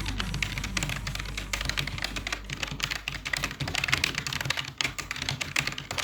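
Fast typing on a computer keyboard: many quick key clicks a second in an irregular, continuous patter.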